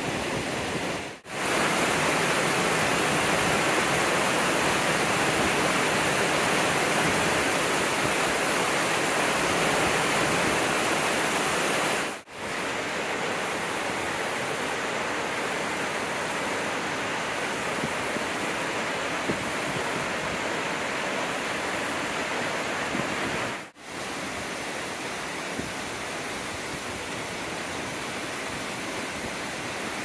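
Steady rush of a waterfall, dropping out briefly three times with a small change of level after each.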